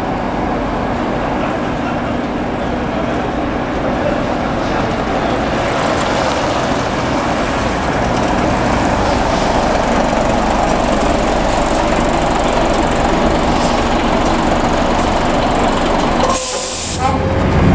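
Bus diesel engine running steadily, a little louder from about eight seconds in. Near the end the engine sound dips and a short, loud hiss of released compressed air, typical of a bus's air brakes or air system, cuts in for under a second.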